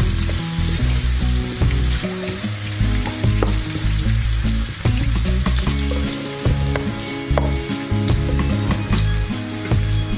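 Chopped onions and green chillies sizzling in hot oil in a frying pan, a steady hiss with frequent sharp spits and crackles; a spatula stirs them at the start.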